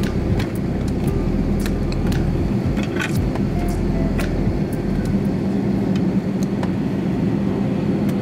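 Steady low drone inside the cabin of a parked Airbus A320neo, with many sharp clicks and knocks scattered through it.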